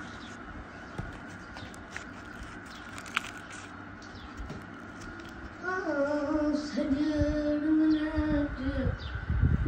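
A voice sings one long held note: it rises briefly, holds level for about three seconds and drops away near the end. Faint high chirps run under it, and low bumps from the camera being handled follow the note.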